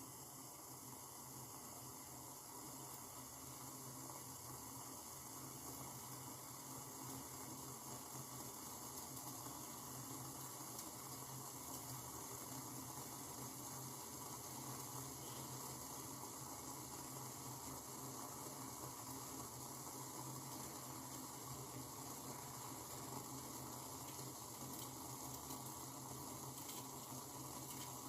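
Pot of herbal decoction (water with ginger, tulsi leaves and turmeric) heating on a gas burner at medium flame, coming up towards the boil: a faint steady hiss that grows slightly louder, with a few faint ticks near the end.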